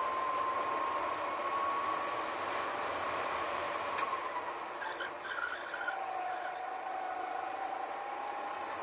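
Go-kart engine running at high revs under a hiss of wind noise, heard from on board; its pitch drops about four seconds in as the kart slows for a corner, with a short click there, then slowly climbs again as it picks up speed.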